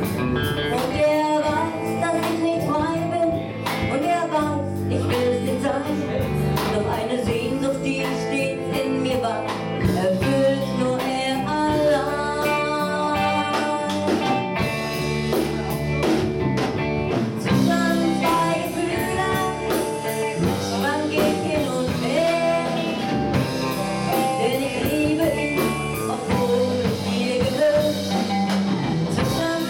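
Live rock band playing: a woman sings over amplified electric guitars and a drum kit.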